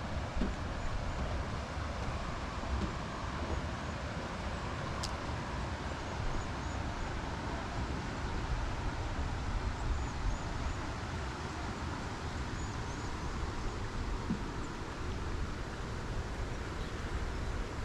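Outdoor ambience: a steady, fluctuating low rumble like wind on the camera microphone, with many faint high chirps and one sharp click about five seconds in.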